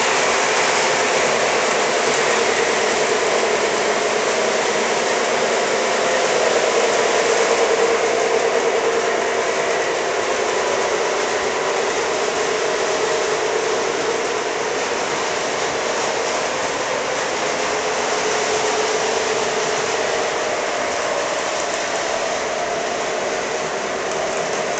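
Model trains running steadily on a layout, a continuous whir of motors and wheels rolling on the track.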